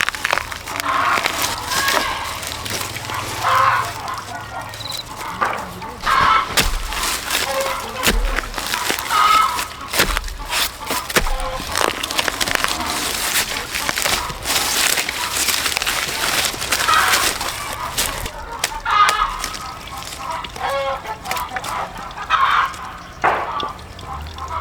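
Chickens clucking, with a rooster crowing, amid many short sharp knocks and clatters.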